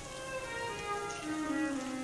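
Recorded classical music from a passacaglia, with long held notes, over a steady patter of rain.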